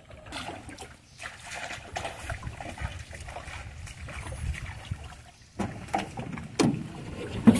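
Water splashing and trickling, with irregular knocks and handling noise and a sharper knock near the end.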